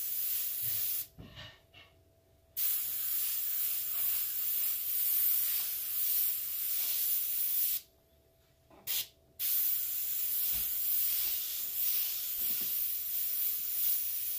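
Airbrush spraying paint with a steady hiss as letters are sprayed freehand. The hiss stops twice when the trigger is released between strokes, about a second in and again near eight seconds, with a short puff of air in the second pause.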